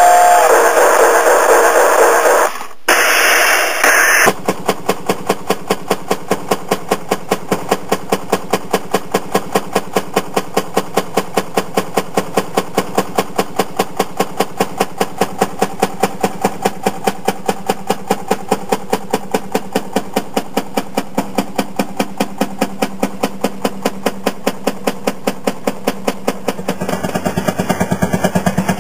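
Fairmont M-19 railroad motorcar's single-cylinder two-stroke engine running at idle with an even, rapid putt-putt of firing strokes. Near the end the beat turns denser over a rumble as the car gets under way on the rails.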